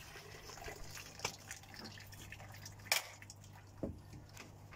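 Water dripping and trickling as a plastic pond vortex chamber is handled in its filter pit, with a few sharp knocks, the loudest about three seconds in. A low steady hum runs underneath.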